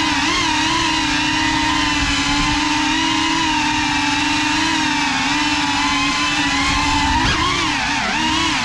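GEPRC Cinelog 35 cinewhoop quadcopter's brushless motors and ducted propellers whining steadily in flight, the pitch wavering with throttle and dipping then rising again about seven to eight seconds in.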